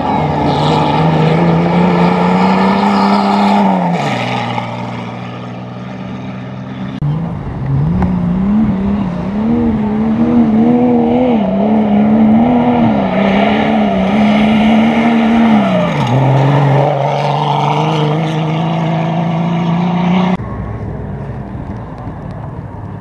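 Safari race car engine running hard, revving up and easing off several times, its pitch rising, holding and dropping sharply twice. It cuts off suddenly about twenty seconds in, leaving a quieter background.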